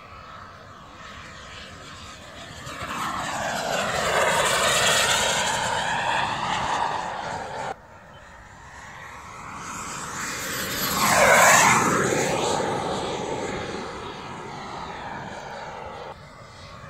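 Radio-controlled model Vampire jet flying past twice, its whine swelling and fading with each pass. It is loudest about five seconds in and again about eleven seconds in, and the sound drops off suddenly between the two.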